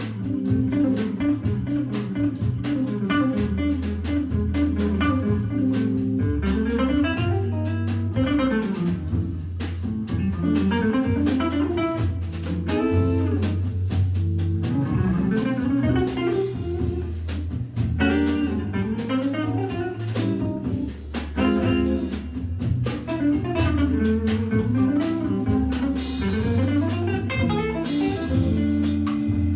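Jazz organ trio playing: electric guitar carries a melodic line over Hammond B3 organ bass notes and a drum kit with steady cymbal strokes.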